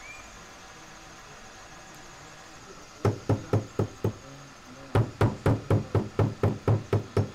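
Small wooden-handled hammer tapping a thin silver strip held in pliers against a block: five quick taps about three seconds in, a short pause, then a run of about ten more at roughly four a second.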